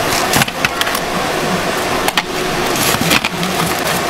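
A few sharp knocks and clacks as a lever-style chicken knife, hinged to a wooden block, chops through fried chicken and metal tongs handle the pieces on a steel tray, over a steady din of background noise.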